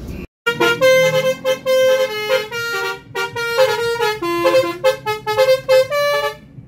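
Bus 'telolet' musical air horn playing a quick tune of short, loud tones at changing pitches, lasting about six seconds. The audio drops out briefly just before the horn starts.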